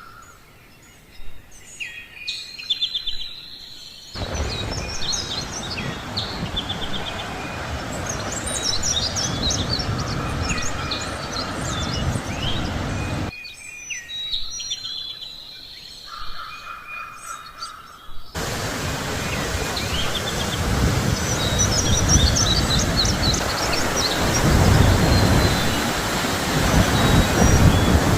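Small birds chirping and singing. Twice, a loud, steady rushing noise starts and stops abruptly and covers the birdsong.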